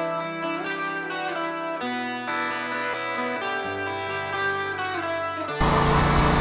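Electric guitar music with sustained, changing chords. Near the end it cuts off abruptly into a louder, steady, noisy mechanical sound.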